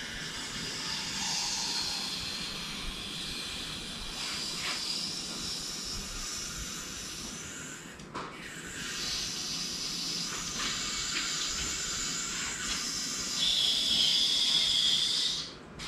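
Hydraulic engine crane hissing as its release valve lets the hoisted engine down. The hiss comes in two long stretches with a short break about eight seconds in, gets louder near the end, then cuts off suddenly.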